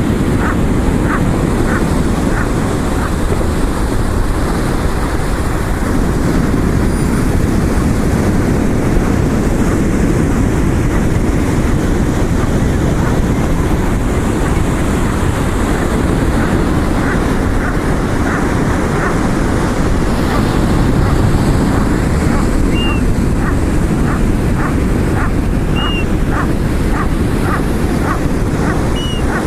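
Surf and wind on the microphone, steady throughout, with gulls giving series of short, rapidly repeated calls in the first few seconds and again through the second half.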